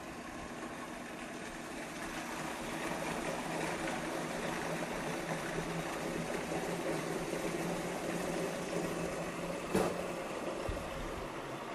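Food processor motor running steadily as it purées roasted squash and onions while stock is poured in through the opening in the lid; one short knock near the end.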